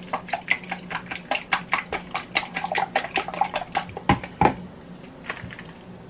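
A whisk beating eggs in a plastic measuring cup: quick rhythmic clicking at about five strokes a second. About four seconds in come two louder knocks, then a few scattered clicks.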